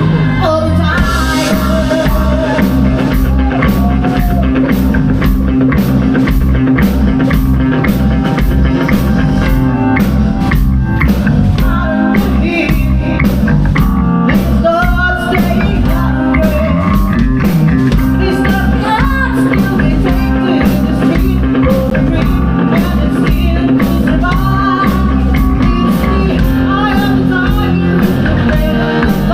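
Live rock band playing a song, loud and steady, over a regular drum beat.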